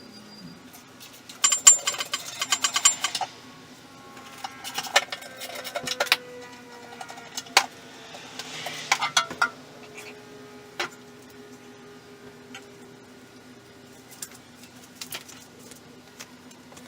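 Bursts of clinking and rattling, like metal tools or parts being handled, in three clusters with short ringing after the strikes, then a few single clicks, over a steady low hum.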